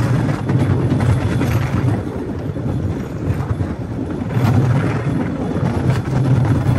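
A Cambodian bamboo train (norry) running along the rails. Its engine drones low and steady together with the rumble of the wheels on the track, swelling and easing a few times.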